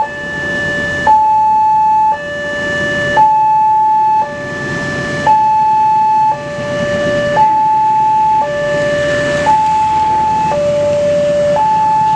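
Railway level-crossing alarm sounding: an electronic two-tone signal alternating between a higher and a lower tone about once a second, warning that a train is approaching. A steady rushing noise runs underneath.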